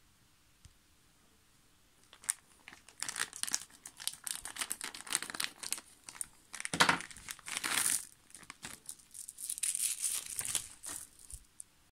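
A small clear plastic bag of screws crinkling and rustling as it is handled and cut open with scissors. The crackling starts about two seconds in and goes on in irregular bursts, with a louder rustle around the middle.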